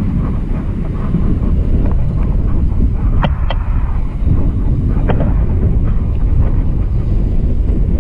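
Wind buffeting the microphone as a loud, rough low rumble. A few brief high chirps come about three and five seconds in.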